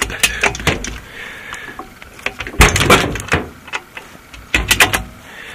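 Clicks and clunks of an SSR pit bike's gear-shift lever being worked by hand through the gearbox, coming in three groups, the loudest a little past halfway. The gearbox shifts and finds neutral.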